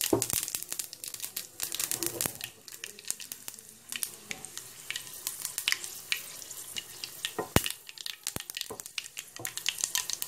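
Whole spices (black mustard, cumin and fenugreek seeds, with dried red chilli) crackling in hot oil in a pan for a tadka. A steady sizzle runs under many irregular sharp pops as the seeds splutter.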